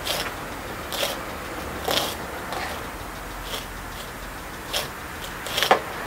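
Short, sharp scrapes and rustles, about one a second, as gloved hands work the moss-covered soil and roots at the base of a persimmon bonsai during repotting. The loudest comes just before the end.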